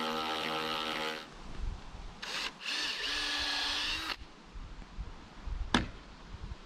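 Handheld power drill running in two spells. The first stops about a second in; after a brief blip, a second run lasts about a second and a half. A single sharp knock comes near the end.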